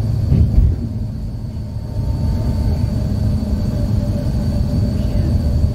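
Steady low rumble of engine and road noise inside a moving vehicle's cabin, with a constant hum and a brief bump about half a second in.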